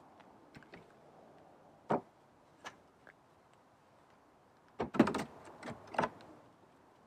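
Homemade wooden folding dog ramp knocking and clunking as it is unfolded and set in place at the back of a car: a sharp knock about two seconds in, a lighter one shortly after, then a quick cluster of clunks around five to six seconds, the loudest of them.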